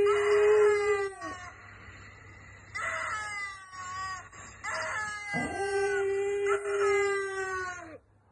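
English bulldog howling: a long, steady howl that ends about a second in, and another from about five seconds in. Between them come shorter, higher howls that fall in pitch.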